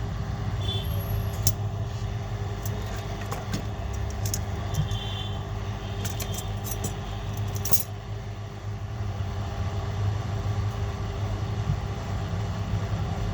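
Light clicks and taps of small hard objects, scattered through the first half and bunched around six to eight seconds in, over a steady low hum.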